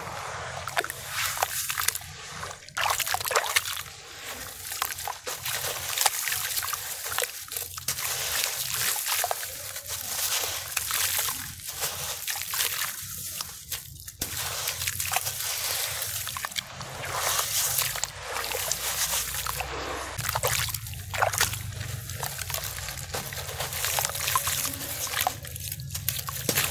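Hands sloshing muddy water in a plastic tub and crumbling wet clumps of dirt into it, with irregular splashes, trickles and drips as water and crumbs fall back into the tub.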